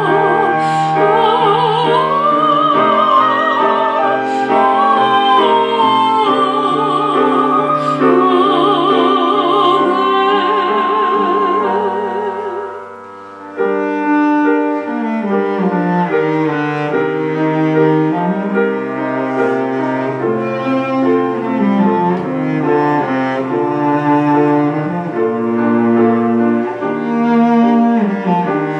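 Live classical-style performance: an operatic voice singing with wide vibrato over piano and cello, the singing ending about halfway through with a short dip. Cello and piano then carry on alone with a bowed, gliding melody line.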